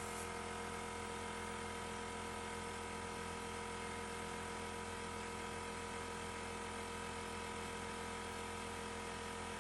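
A steady mechanical hum made of several fixed tones, unchanging in pitch and level.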